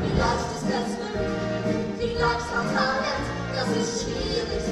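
Musical-theatre song number: band accompaniment with singing voices.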